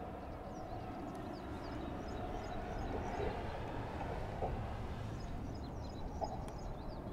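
Outdoor ambience: a steady low rush with small birds chirping faintly now and then.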